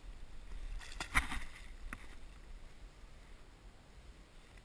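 A few light knocks and rustles of gear being handled in a kayak, the sharpest about a second in and another a moment later, over a low steady rumble of wind and water.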